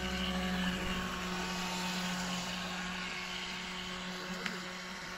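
Motor and propeller of a radio-controlled model coast guard patrol boat running, a steady whine that slowly fades.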